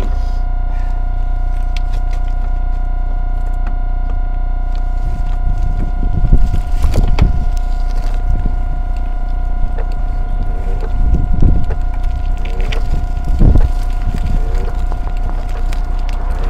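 Electric-assist bike ridden over a rough footpath: a steady whine over a constant low rumble, with heavy irregular jolts and thumps from about six seconds in.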